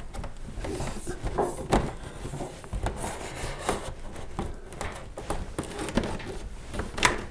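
Cardboard display parts being handled and fitted: irregular rubbing, scraping and small knocks as a shelf support bar is set in under a shelf, with a sharper knock near the end.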